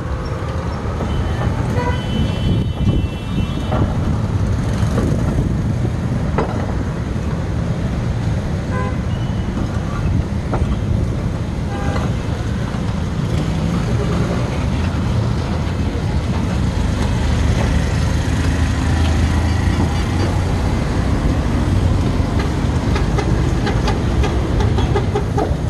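Steady street traffic rumble, with a vehicle horn tooting briefly about two to three seconds in.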